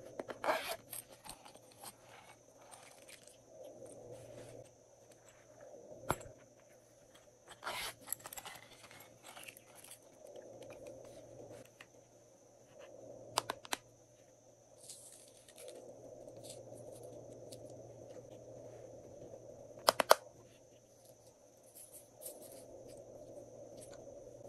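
Small handling noises from plastic containers and craft decorations over a glass dish of slime: scattered sharp clicks and taps, a short rustle, and two quick double clicks.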